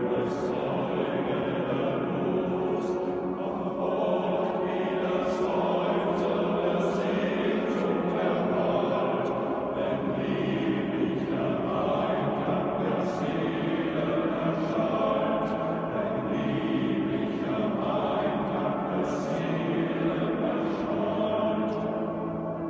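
Men's choir singing in sustained chords in a large church, the voices carrying with the room's echo, with the s-sounds of the words sung together by the whole group; the singing eases off near the end.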